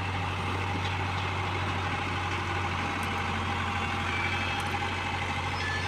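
Heavy diesel engine of earth-moving machinery running steadily at idle.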